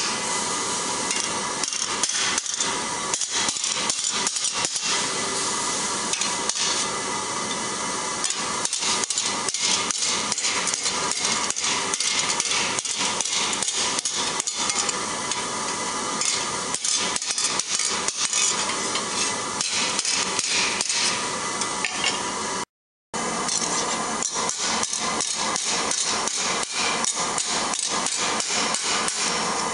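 Hand hammer striking a steel sheet held over an anvil horn, a continuous run of ringing metallic blows as the curved plate of a gauntlet is shaped. The sound cuts out briefly about three-quarters of the way through.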